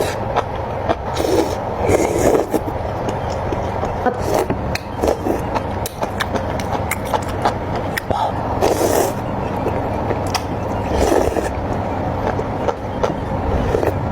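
Close-miked eating of seblak: continuous wet chewing with many sharp mouth clicks, and louder swells about two seconds in, around nine seconds and around eleven seconds.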